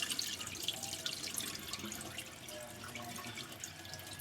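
Rinse water draining and dripping off washed raw chicken pieces into a sink, with many small splashes and drips that slowly die down.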